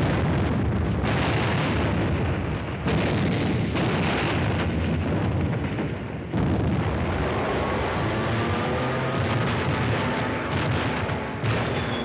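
Explosions and blasts from a wartime battle-film soundtrack, with fresh blasts breaking in about one, three, four and six seconds in. In the second half, sustained tones that rise gently come in under the noise.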